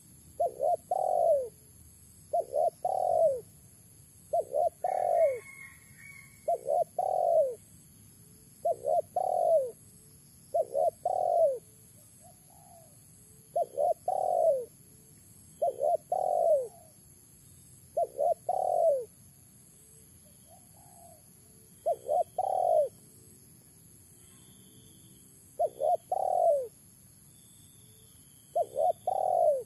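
Spotted dove cooing: its phrase of two short notes and a longer one, repeated every two seconds or so, with longer pauses near the end.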